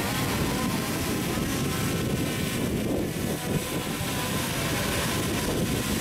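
Multirotor drone propellers and motors running steadily, a dense whirring hum with faint steady tones, mixed with wind buffeting the microphone.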